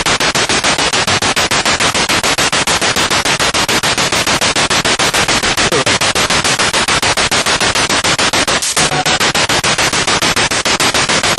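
Spirit box radio sweeping rapidly through stations: loud static chopped into a fast, even pulse of about eight steps a second.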